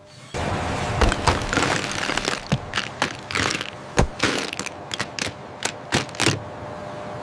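An uneven run of sharp cracks and knocks, about a dozen or more, over a steady hum, dying away shortly before the end.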